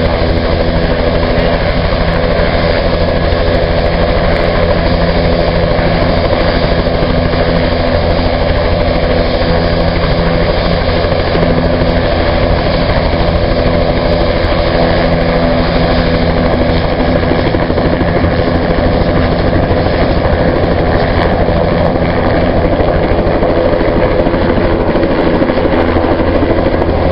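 Bell 206 JetRanger helicopter's turbine engine and two-blade main rotor running steadily on the ground, then lifting off near the end.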